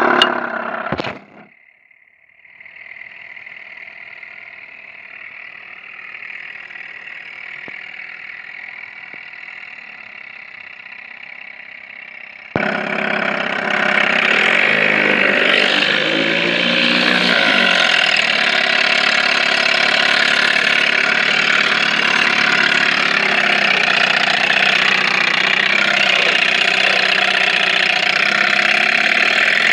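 Evinrude 4 hp two-stroke twin-cylinder outboard motor starting and running. A loud burst comes first, then a quieter steady run. About twelve seconds in, the sound suddenly becomes much louder and stays steady.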